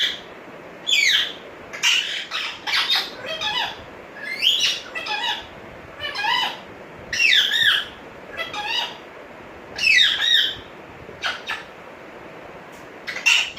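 African grey parrot giving a run of short, shrill calls and whistles, many of them gliding down in pitch, in groups with gaps of a second or so between them.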